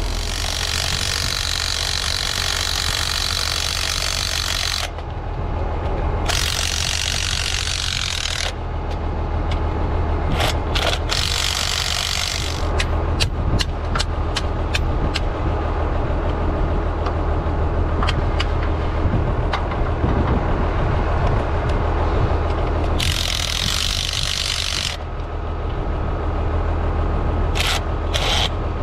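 Tractor engine idling steadily under several bursts from a cordless impact wrench running on the bolts of a row-crop cultivator's shanks. A run of sharp metal knocks falls between the bursts in the middle.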